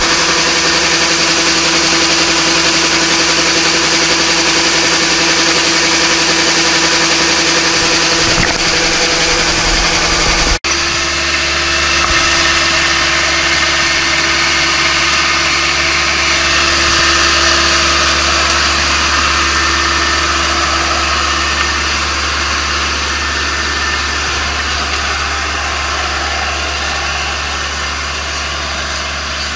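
Kubota ARN460 combine harvester's diesel engine running steadily while its auger unloads grain. About ten seconds in, the sound changes abruptly, and the machine keeps running.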